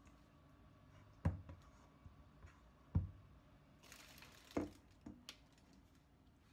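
Hands working a ball of bread dough on a floured plastic cutting board: dull thumps, two of them about a second and a half apart, then a brief brushing rustle of flour and another thump, with a few small clicks.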